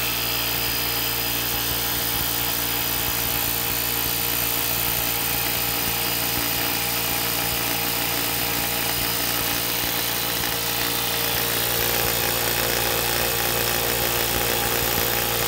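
Harbor Freight 2.5 HP, 21-gallon air compressor running steadily while it pumps up an empty tank. Its intake is fitted with a 3D-printed nylon muffler, which takes much of the rumble out and leaves a significant amount of mechanical noise and vibration.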